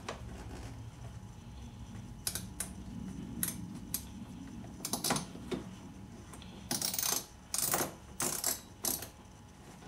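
Plastic door trim of a car door being worked loose by hand: scattered light clicks, then four short, louder scraping rubs near the end as the panel and its clips are pried and shifted.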